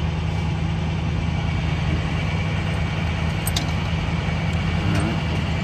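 Bucket truck's engine idling steadily, a low even drone. A single short click sounds about three and a half seconds in.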